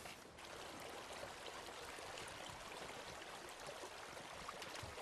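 Shallow stream running over stones, a steady rush of water.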